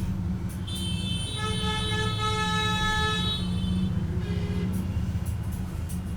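A vehicle horn held for about three seconds, one steady note, over a steady low traffic rumble.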